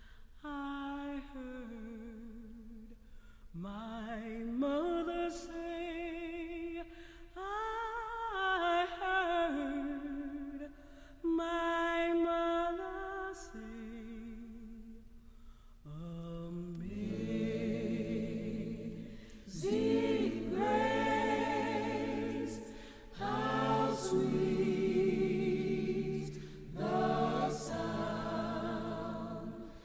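Unaccompanied singing: a single voice with vibrato sings a slow melody for about the first half, then several voices join in harmony like a small choir.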